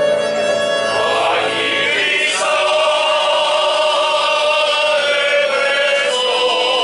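Male folk choir singing together, holding long notes and moving to a new chord about two seconds in.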